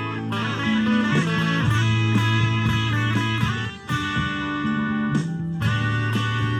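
Stratocaster-style electric guitar playing lead lines over a blues-rock band track with a steady bass line and drums. The band drops out briefly just before four seconds in.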